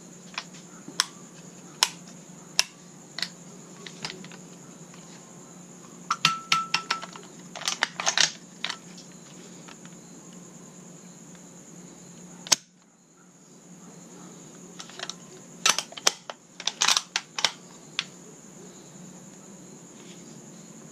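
Metal-on-metal clicks and clacks of an SKS rifle being handled: scattered sharp clicks, then short rattling runs of clicks with a brief metallic ring, and one loud click about halfway through.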